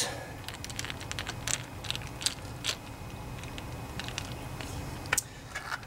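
Small clicks and ticks of hands fitting a ground wire terminal onto the carburetor of a Kohler Courage twin-cylinder engine, scattered and light, with one sharper click about five seconds in.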